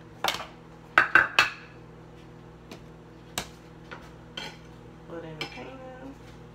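Kitchen utensils clinking: a table knife knocking against a butter dish and a frying pan as butter is cut and put into the pan. Several sharp clinks, the loudest three in quick succession about a second in, then lighter taps spread through the rest.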